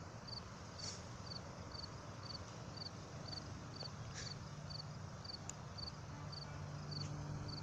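Faint outdoor ambience: a small animal's short, high chirp repeats evenly about twice a second over a low, steady rumble that grows a little near the end.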